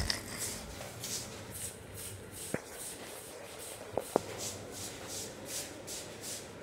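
Faint handling noise from a handheld phone: soft rubbing and rustling with a light hiss repeating a few times a second, and three sharp clicks near the middle.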